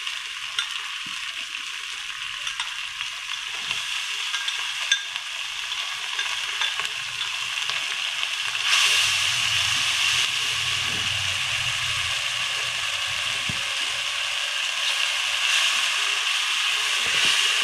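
Marinated boneless chicken sizzling in hot oil and ginger-garlic paste in a nonstick wok, with a few light taps of a spoon against the bowl early on. The sizzle grows louder about halfway through, and the chicken is stirred with a spatula.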